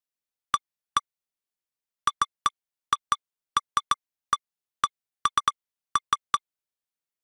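About eighteen short identical electronic beeps at irregular intervals, some in quick runs of two or three: the lightning-detector software's strike alert, each beep marking a detected lightning strike in the replayed storm history.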